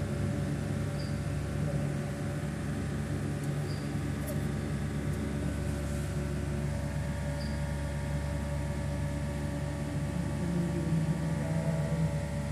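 Steady electrical hum from the star-delta starter panel of a running 35 kW pump motor, an even drone with a low buzzing tone that holds unchanged throughout.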